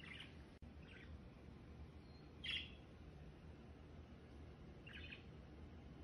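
Small caged pet bird chirping faintly: four short, high chirps, the one about two and a half seconds in the loudest.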